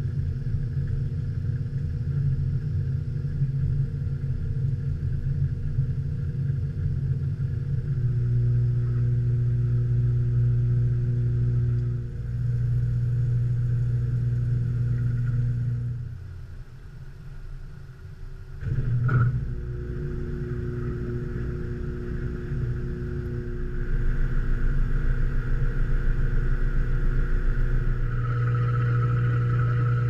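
Samsung high-efficiency top-load washer, heard from inside its drum: a steady low motor and drum rumble. About halfway through it briefly drops away, then a sharp knock, and the drum runs on in its spin cycle, growing louder near the end.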